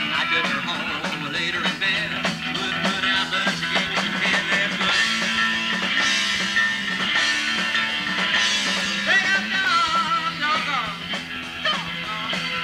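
Live rock-and-roll band playing, with a drum kit keeping up steady strikes under the other instruments.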